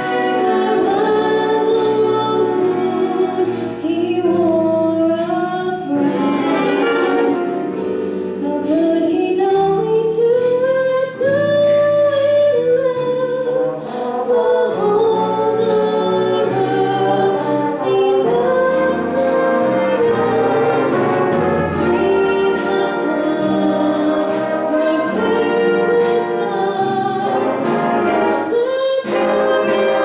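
School jazz big band playing with a female vocalist singing the melody, backed by saxophones, trumpets and trombones.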